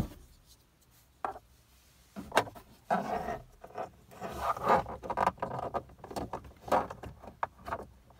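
Handling noise inside a small car: a sharp click at the start, then irregular rubbing, scraping and light knocks of hands and a phone against the dashboard plastics while a Bluetooth OBD dongle is fitted into the diagnostic port.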